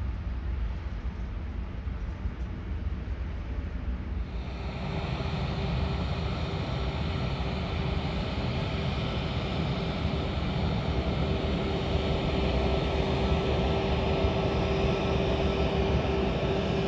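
For the first few seconds the distant Emirates Airbus A380 climbs away with a low rumble. About four seconds in, the sound changes abruptly to an Aegean Airbus A320-family jet rolling along the runway. Its engines run with a steady whine that slowly grows louder.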